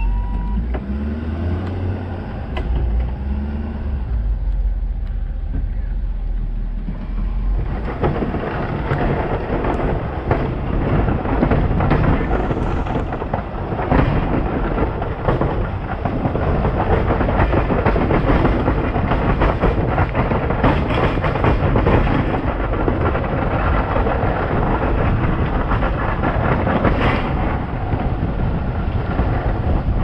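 Snowplow truck driving on an icy road. For the first several seconds it is a low engine rumble; from about eight seconds in, a louder rough scraping and rattling with many small clicks and knocks takes over.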